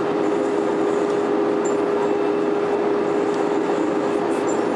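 Steady cabin noise inside an Airbus A320-200 on approach, the engines and airflow making a constant rush with a steady low hum running through it.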